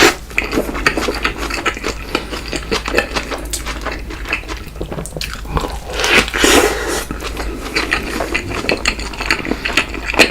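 Close-miked biting and chewing of a burger, with dense small crackling clicks of mouth sounds throughout and a louder swell of chewing about six seconds in.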